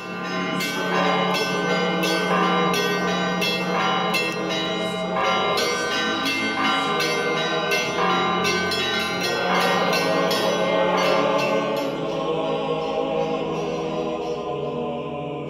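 Church bells ringing in a fast, dense peal of overlapping strikes over a steady low hum; near the end the strikes stop and the ringing dies away.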